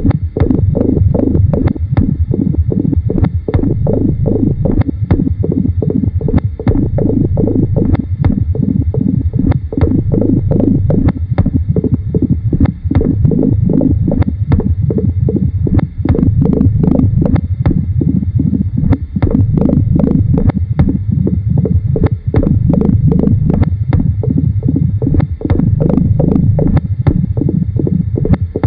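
Experimental noise and tape music: a dense, loud, low rumbling texture studded with rapid, irregular clicks and knocks, unbroken throughout.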